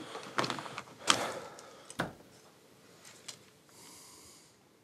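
Light clicks and knocks of a soldering iron's mains plug being handled and pushed into a socket, the sharpest click about two seconds in. Near the end, a brief soft hiss as the hot iron is put to a wired tag strip.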